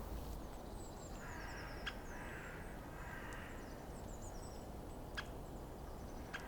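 Faint forest ambience with small birds giving thin, very high-pitched calls in short series, and a couple of single sharp ticks.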